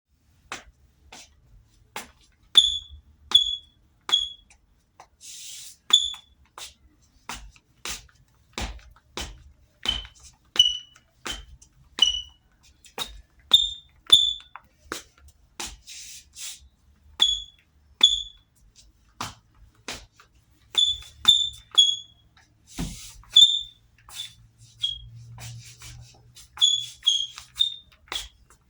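Sneaker soles squeaking on a hard floor with the steps: a steady run of footfalls, about two a second, many of them giving a short, sharp high chirp, in clusters of two or three with quieter steps between.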